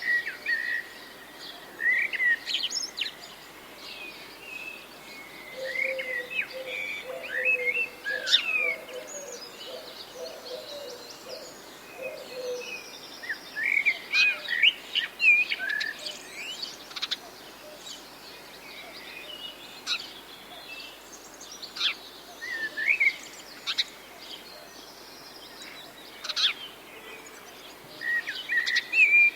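Several wild birds chirping and calling in short, scattered phrases, with a lower repeated call from another bird for several seconds about six seconds in.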